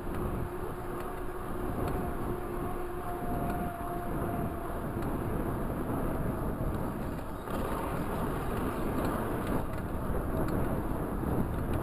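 Wind rushing over the microphone and the knobby tyres of a Raleigh Talus 29er mountain bike rolling on asphalt, a steady noise with a faint hum through the first few seconds.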